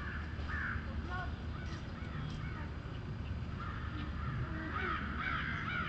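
Crows cawing: a few harsh calls about half a second in and a denser run of calls in the last two seconds, over a steady low rumble.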